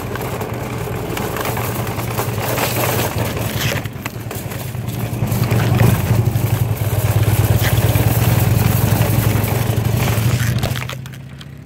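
Motorcycle engine running with a steady low, rapidly pulsing rumble. It grows louder midway, then fades out near the end.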